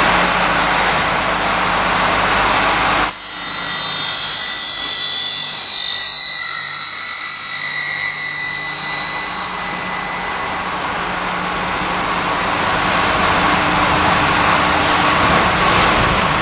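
Aluminium end milling machine running. About three seconds in the sound changes suddenly to a high-pitched ringing whine made of several steady tones, which lasts about seven seconds before the broader machine hum returns.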